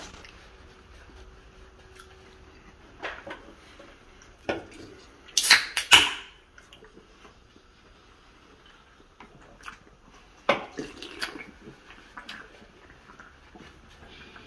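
A person eating: quiet chewing and mouth sounds with scattered light clicks and knocks. There are short noisy bursts of rustling about five to six seconds in and again about ten to eleven seconds in.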